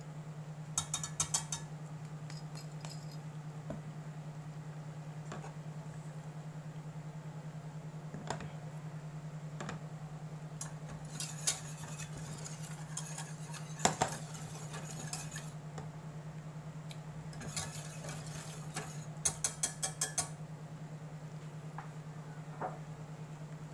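Wire whisk clinking and rattling against a stainless steel saucepan while stirring a butter-and-flour roux, in several short bursts of quick strokes with pauses between. A steady low hum runs underneath.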